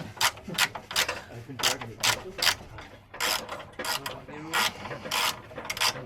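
Ratchet wrench clicking in repeated short strokes as a fastener is worked on the car.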